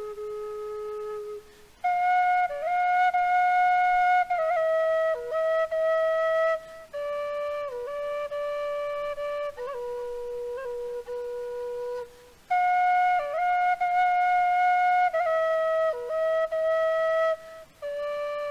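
A solo flute playing a folk tune: one melodic line with quick ornamental flicks between notes, in phrases with short breaks. The phrase that starts about two seconds in is played again about twelve and a half seconds in.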